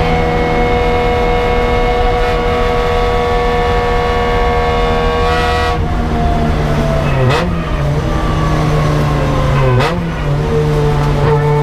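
Toyota 4A-GE four-cylinder engine of a KE70 Corolla race car, heard from inside the cockpit, running hard at steady high revs. About six seconds in the note drops, and there are two gear changes, each a short sharp break with a dip and recovery in engine pitch, about seven and ten seconds in, before the engine settles into a steady pull again.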